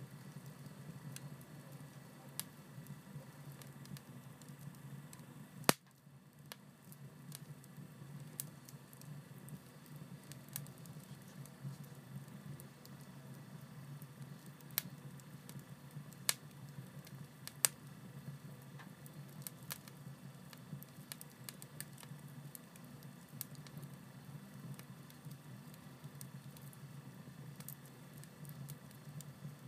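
Paper and cardboard fire burning in a stove, crackling: scattered sharp pops over a steady low background, the loudest pop about six seconds in.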